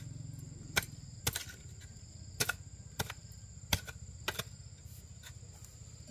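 Sharp, irregular chopping strikes, a dozen or so in a few seconds, as a hoe bites into the ground. A steady high drone of insects runs underneath.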